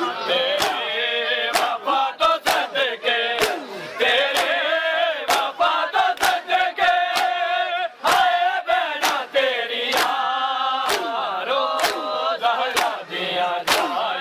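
Men's open hands slapping their chests in unison in matam, sharp claps about twice a second, over men's voices chanting a lamenting noha.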